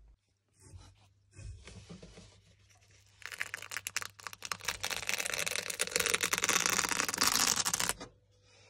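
Dry shed skin of a green iguana being peeled off its front leg, crackling and tearing. After a couple of short crackles, a long dense crackle builds and cuts off abruptly near the end.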